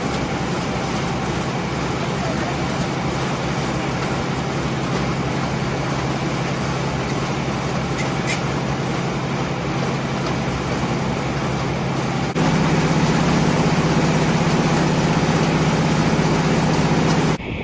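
Vintage John Deere tractor engine running steadily. About twelve seconds in it steps up suddenly, louder and higher in pitch.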